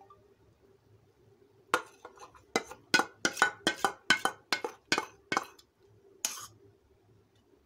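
Metal spoon clinking and scraping against a metal bowl while the last of the yogurt is scraped out: a quick run of about a dozen sharp clinks, about four a second, starting about two seconds in, then one more a little later.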